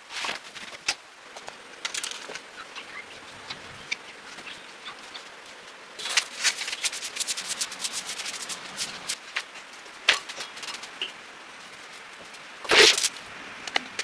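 Household cleaning sounds: plastic bottles and containers clicking as they are handled, then a small broom scratching in quick strokes over a window sill, with a brief louder rustle about a second before the end.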